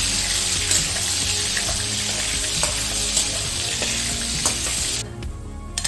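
Diced sausage sizzling in hot oil in a wok, stirred with a spatula that gives light scrapes and taps. The sizzle stops abruptly about five seconds in.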